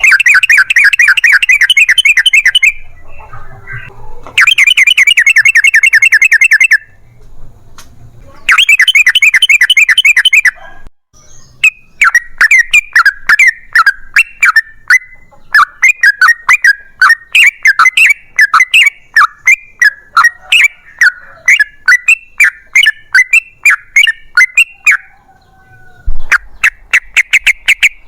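Yellow-vented bulbul (trucukan) calling loudly: three long, rapid rattling trills of about two seconds each, then a long run of quick chattering notes, and another rattling trill near the end.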